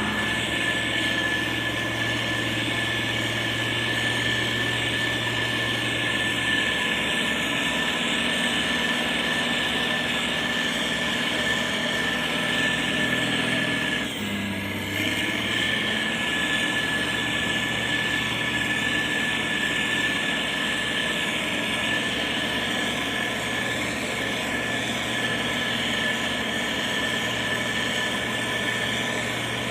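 Heavy diesel road-construction machine's engine running steadily, with a steady high whine over the engine note. About halfway through, the sound dips briefly and the engine note shifts.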